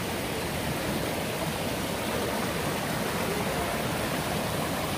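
Steady, even rush of water from a forest stream pouring over a waterfall.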